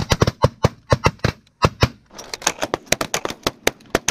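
A volley of shotgun blasts from several hunters firing at once: well over a dozen shots in quick succession, some overlapping, loud near ones mixed with fainter ones further down the line.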